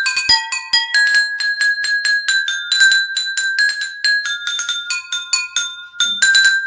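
Ringtone melody played in quick, high-pitched bell-like notes, several a second.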